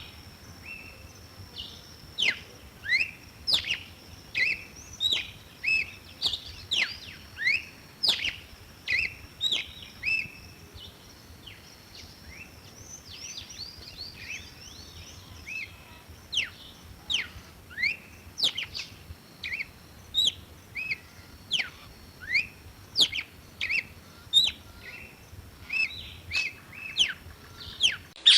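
A songbird singing a fast string of short, clear notes, each a quick sweep up or down in pitch, repeated about one to two times a second, with a steady thin high tone behind it.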